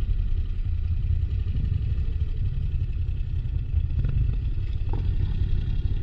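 Moto Guzzi V85TT's air-cooled V-twin running as the bike rides off-road, a steady low rumble, with a few short knocks about four and five seconds in.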